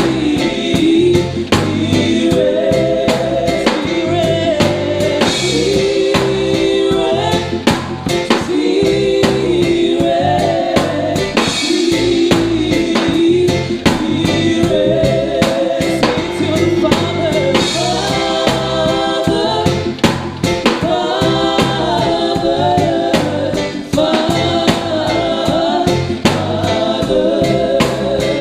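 Church worship band playing a worship song: several voices singing the melody together over a steady drum-kit beat.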